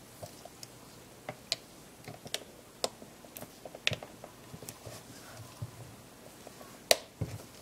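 Small, irregular clicks and taps of gloved fingers handling a camera body while setting a small replacement glass cover over the top LCD. A sharper click comes near the end.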